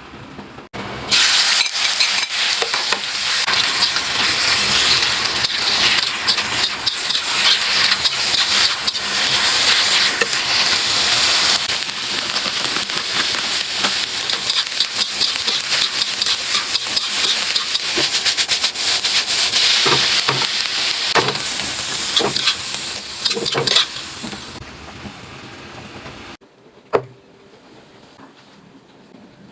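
Food sizzling and crackling in hot oil in a pan, with short clicks of stirring. The sizzle begins abruptly about a second in and falls away near the end.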